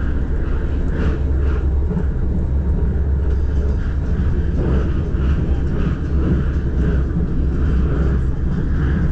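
Inside a carriage of the KLIA Ekspres airport train running at speed: a steady low rumble of the moving train.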